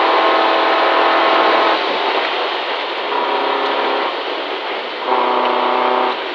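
Rally car's engine running hard, heard from inside the cabin, over a steady rush of gravel and tyre noise. The engine note holds steady for about a second at a time, three times, dropping away briefly in between.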